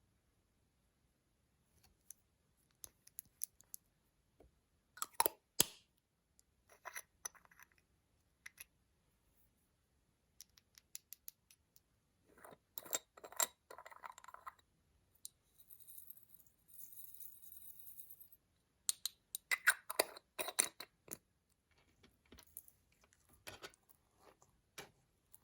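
Scattered clicks, taps and short scraping sounds of makeup products being handled and worked into slime, with a soft rustling hiss lasting about two seconds in the middle.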